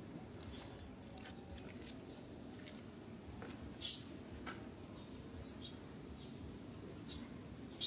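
Short, high-pitched animal chirps, four of them spaced a second or so apart, the first about four seconds in, over a faint low background murmur.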